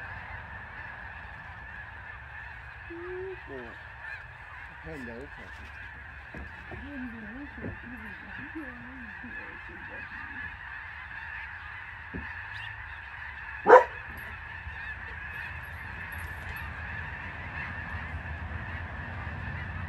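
A large flock of snow geese honking, a dense, steady far-off chorus of overlapping calls. A single short, loud sharp call stands out about two-thirds of the way through.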